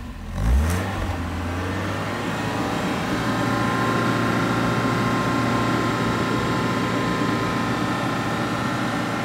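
1989 Alfa Romeo engine just after a cold start: one short throttle blip about half a second in, then it settles back to a steady idle.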